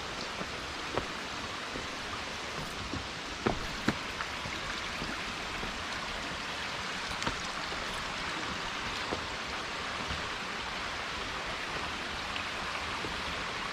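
Stream water running steadily, with a couple of short knocks about three and a half seconds in.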